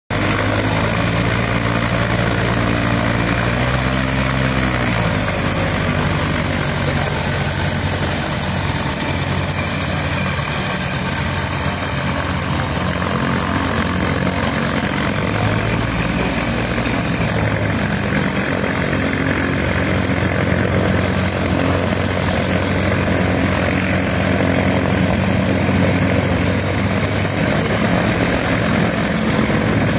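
Small amphibious light aircraft's pusher-propeller engine running at low taxi power, a steady drone whose speed changes briefly about four to five seconds in, over a steady high hiss.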